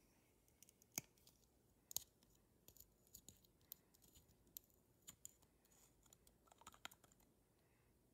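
Quiet clicks and taps of a small plastic dropper bottle being handled and squeezed: two sharper clicks about one and two seconds in, then a run of light, irregular ticks.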